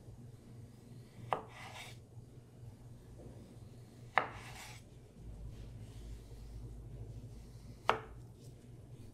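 A long knife slicing a tuna loin into sashimi on a bamboo cutting board: three sharp taps as the blade meets the board, about three seconds apart, each followed by a brief hiss.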